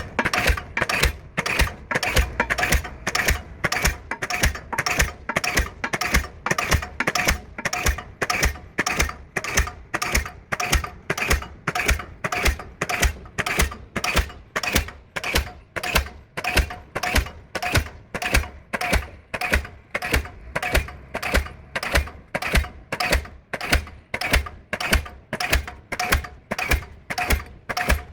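Diesel pile hammer running and driving a pile: sharp, evenly spaced blows at about two a second, each with a short metallic ring.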